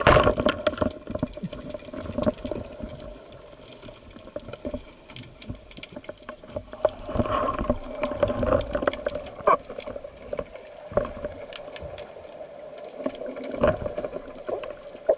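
Water sloshing and gurgling around the camera, with many short irregular clicks and a steady hum underneath.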